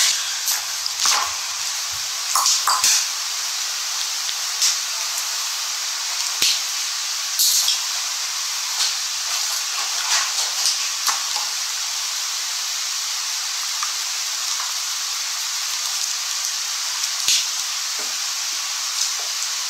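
Steady hiss, with a few short knocks and rustles scattered through it.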